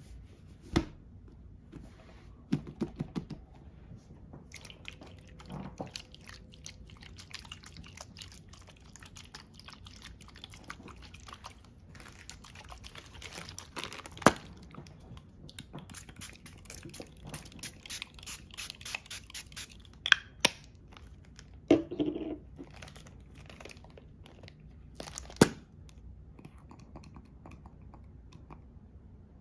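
Close-miked handling of makeup products: sharp clicks and taps, a few of them loud, between long stretches of crinkly scratching and rustling.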